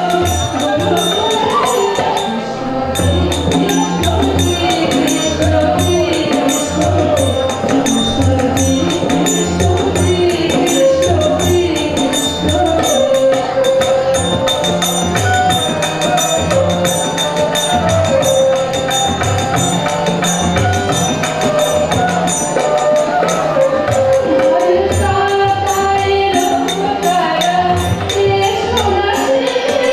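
A woman singing with harmonium accompaniment, over a steady beat of a low hand drum and jingling percussion such as small cymbals or a tambourine.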